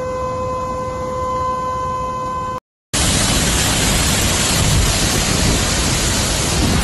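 Flash-flood water rushing, with a steady two-pitched hum over it. After a brief dropout about two and a half seconds in, a much louder, even rush of muddy floodwater pouring down a street takes over and carries on to the end.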